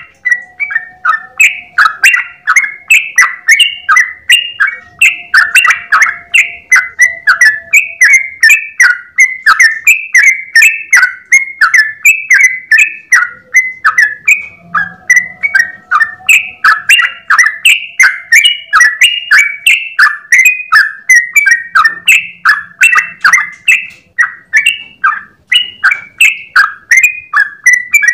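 Yellow-vented bulbul (trucukan) singing a long unbroken run of short, bubbling notes, several a second, without a pause.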